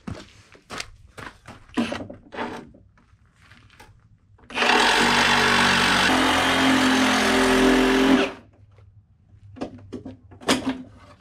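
A cordless power saw cutting for about four seconds in the middle, a dense rasping noise with a steady motor pitch under it, starting about four and a half seconds in and stopping abruptly. Scattered knocks and handling sounds come before and after.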